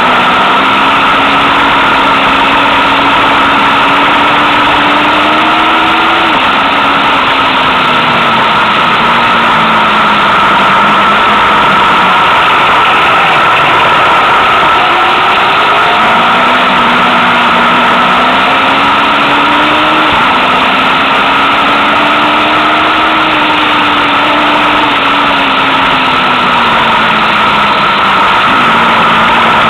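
Motorcycle engine under way, heard over loud, steady wind rush on the onboard microphone. The engine note climbs and steps down about six seconds in, falls away for several seconds as the bike slows, then climbs again from about sixteen seconds with another step down near twenty seconds.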